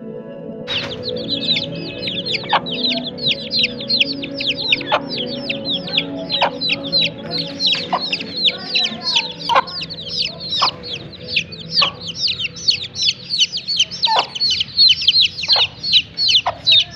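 Ten-day-old chicks peeping continuously, many quick falling cheeps a second, with a hen clucking now and then beneath them. Soft music sits underneath.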